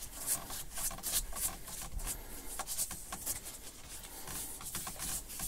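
Faint rubbing and scratching handling noises, a run of short soft scrapes.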